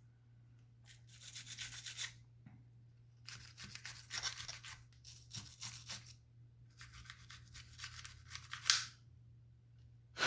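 Stiff plastic brush scrubbing loose dirt out of a Glock pistol's polymer frame, in three spells of quick back-and-forth strokes. A faint steady low hum lies underneath.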